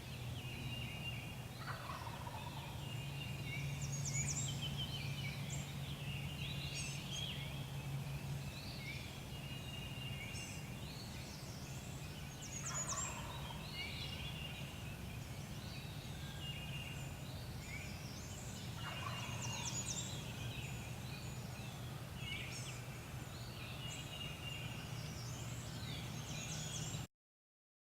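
Wild turkey gobbler gobbling three times, each gobble falling in pitch, over a dawn chorus of songbirds chirping. The sound cuts off suddenly near the end.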